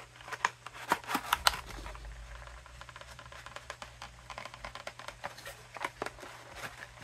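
Small cardboard box being opened by hand: scattered scrapes and clicks of paperboard as a tight-fitting inner tray is worked out of its sleeve, busiest in the first second and a half and again near the end.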